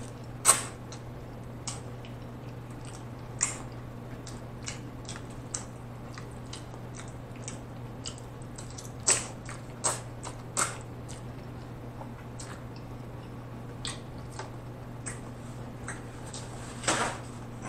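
Close-miked eating of spaghetti: wet chewing and slurping mouth sounds, heard as scattered short clicks and smacks with a few louder ones about halfway through and a longer noisy one near the end.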